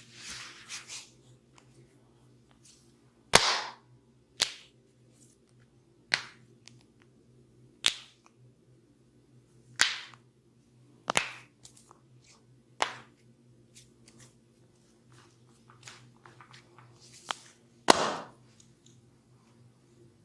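Sharp cracks of a masseur's hands on bare skin during a skin-cracking massage, about nine single cracks one to two seconds apart. The loudest comes about three seconds in and another near the end.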